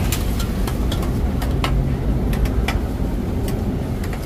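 Steady low rumble of road traffic and motorbikes, with scattered sharp clicks and clinks of utensils and dishes at the stall.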